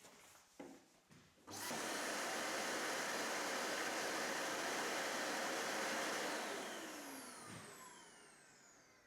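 Samsung SC 4326 bagless canister vacuum cleaner switched on about a second and a half in and running at a steady level for about four and a half seconds. It is then switched off, and the motor's whine falls in pitch as it spins down.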